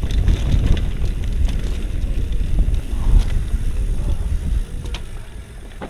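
Wind buffeting the microphone while a bicycle rides a rough downhill trail, a heavy low rumble with scattered sharp clicks and rattles from the bike. The rumble eases about four and a half seconds in.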